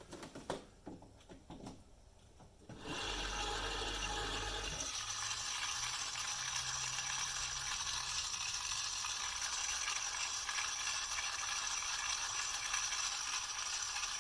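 A few handling clicks, then about three seconds in the Tefal Le Saucier's small stirring motor and gear train start and run steadily, a sign that the simple repair has worked.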